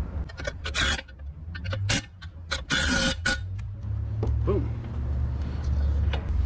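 A low, steady rumble, with several short scraping and clicking noises from hand work on the metal fittings of a waterjet's steering nozzle pivot, about one second in, at two seconds, and for a moment around three seconds.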